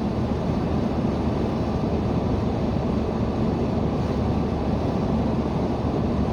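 Steady road and engine noise of a car being driven, heard inside the cabin.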